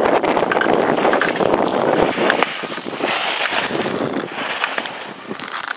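Slalom skis scraping and carving on hard-packed snow through quick turns, with sharp clacks as gate poles are struck, over wind noise on the microphone. The scraping fades toward the end.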